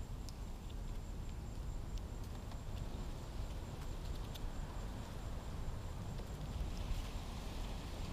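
Steady low rumble of wind on the microphone, with faint scattered clicks of young Florida scrub-jays pecking at peanuts held in a hand, a few of them about four seconds in.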